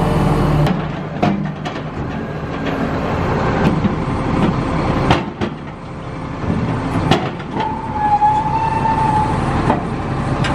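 Heavy machinery running, a steady diesel rumble broken by several sharp metal clanks, with a steady whine for about two seconds in the second half.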